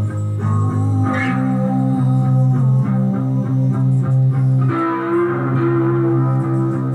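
Electric guitar played slowly: long held low notes that shift to new notes about a second in and again just before five seconds in, with a higher note ringing over the top near the end.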